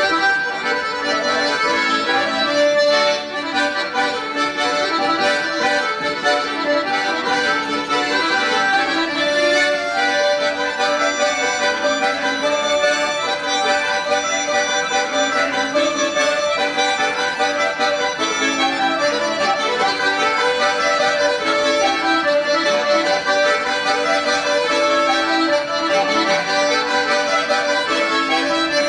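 Folk trio playing a tune together: a garmon and a button accordion sound sustained chords and melody, and a plucked dombra plays with them.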